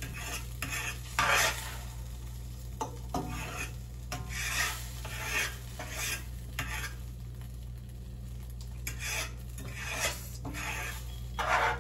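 Eggs and cheese being scrambled in a frying pan: a utensil scraping and stirring across the pan in irregular strokes, with a light sizzle underneath.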